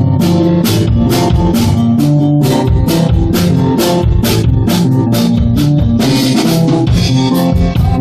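Instrumental band intro of a pop-rock song: a drum kit keeps a steady beat of about two hits a second under bass and guitar chords, with a cymbal crash about six seconds in.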